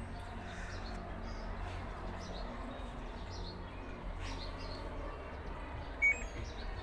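Steady low background hum with faint bird chirps. Near the end comes one short electronic beep from the LG washing machine's control panel as a programme button is pressed.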